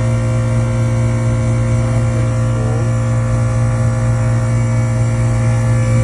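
Compressor of a Lennox packaged rooftop unit running, heard close up as a loud, steady, low electrical hum with fainter steady tones above it.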